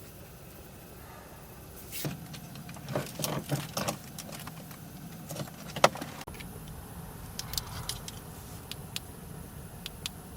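Handling noises: a run of knocks and clicks for a few seconds, the sharpest knock near the end of the run, followed by a few light ticks.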